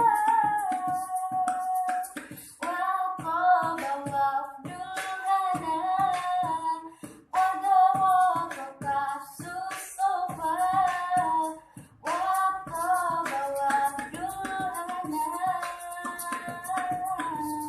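A woman singing a sholawat melody in long ornamented phrases over a steady beatboxed rhythm.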